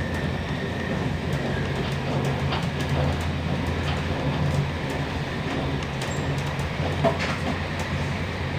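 Train running noise heard from inside a passenger carriage: a steady low rumble with scattered clicks of wheels on the rails, as a freight train of covered wagons passes close alongside on the next track.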